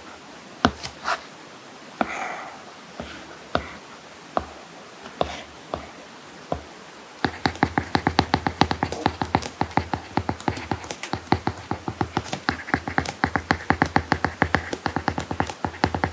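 Stylus tip tapping and writing on an iPad screen fitted with a paper-like matte screen protector: a few scattered taps, then from about seven seconds in a fast, dense run of clicks as handwriting gets going.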